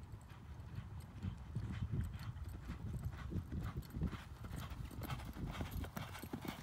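Hoofbeats of two horses galloping together on a sand track, a quick run of soft thuds that grows sharper as the horses come closer in the second half.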